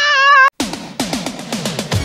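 A woman's high-pitched, drawn-out cry from an anime voice track, cut off abruptly about half a second in. Electronic music with a beat starts right after it.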